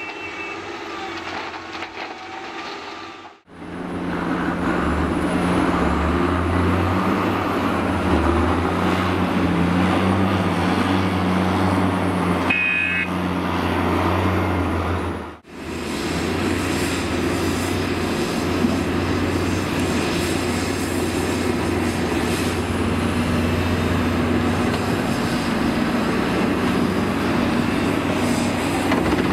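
Heavy diesel engines of crawler excavators and articulated dump trucks running steadily under load while soil is loaded, with a short high-pitched beep near the middle.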